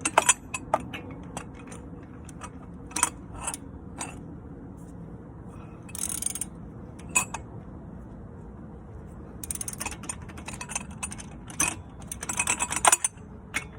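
Ratchet wrench and hand tools at work on a shock absorber mounting: scattered metallic clicks and knocks, with runs of rapid ratchet clicking about ten seconds in and again near the end.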